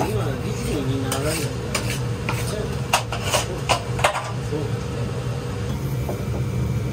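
Metal spatulas clinking and scraping on a steel teppan griddle, with a run of sharp clicks in the first half, over a steady low hum.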